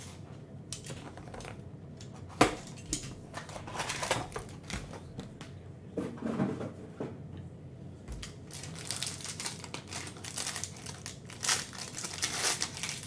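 A trading card pack's shiny plastic wrapper being handled, crinkled and torn open, with a cardboard hobby box handled alongside. There is a sharp tap about two seconds in, and the crinkling grows busier in the last few seconds.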